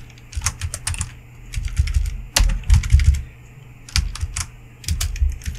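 Computer keyboard typing: irregular short runs of keystroke clicks with brief pauses between them.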